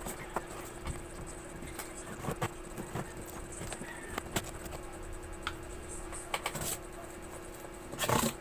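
Scattered light clicks, taps and rustles of parts and packaging being handled, with a louder burst of rattling near the end, over a steady low hum.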